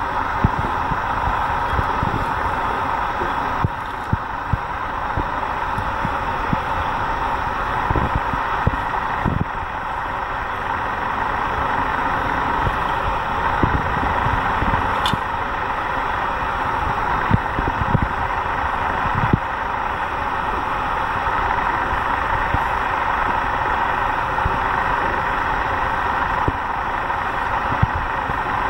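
Steady road-traffic noise, with irregular low thumps scattered throughout.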